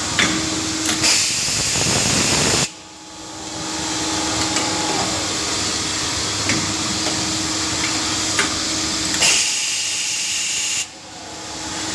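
Automatic rotary transfer drilling, tapping and milling machine running: a steady hum under a loud hiss, with scattered clicks. The sound drops off suddenly about three seconds in and again near the end, then builds back up.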